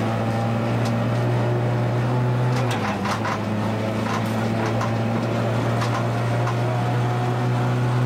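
Renault Clio Williams Group A rally car's 2.0-litre four-cylinder engine heard from inside the cabin, running at steady revs with a brief small dip in pitch about three seconds in. Occasional sharp clicks and knocks sound over it.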